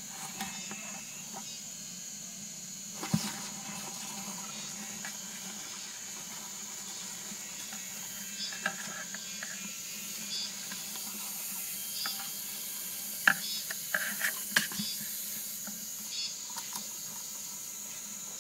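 Bamboo sticks tapping and scraping against a plastic basin as they prod a giant centipede: a few sharp clicks, the loudest about three seconds in and two-thirds of the way through, over a steady high hiss.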